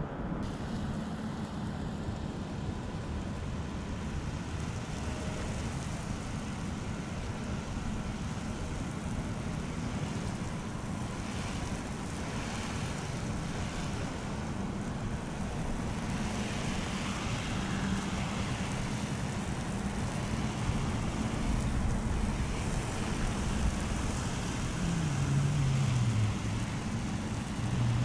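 Steady hiss of a soft-wash gun spraying cleaning solution onto asphalt roof shingles, growing a little louder about halfway through.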